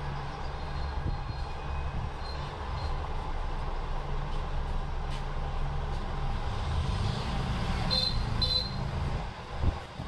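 Steady low mechanical hum, with two short high-pitched chirps close together about eight seconds in.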